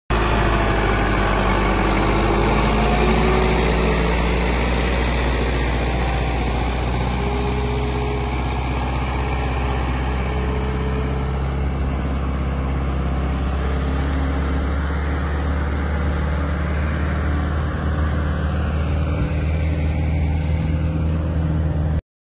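Engine running steadily with a low, even rumble, cutting off suddenly near the end.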